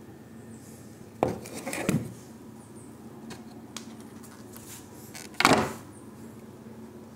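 A stiff molded resin casting handled and knocked against hard surfaces: a sharp knock and scrape about a second in, and a louder clatter past the middle.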